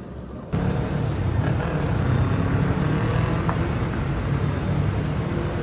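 Steady low rumbling vehicle noise, like a car on the road, starting abruptly about half a second in.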